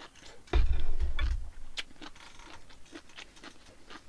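Eating sounds: chewing with small scattered clicks of chopsticks and a stainless steel bowl. A loud low thump on the wooden table comes about half a second in and dies away over about a second.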